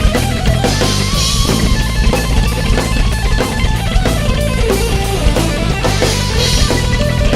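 Instrumental heavy metal: distorted electric guitars playing a riff over a driving drum kit with bass drum, no vocals.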